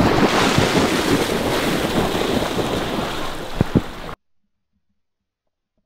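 Water splashing and churning as a retrieving dog plunges and swims out through marsh water, mixed with wind on the microphone, with two sharp knocks near the end. The sound cuts off abruptly to silence about four seconds in.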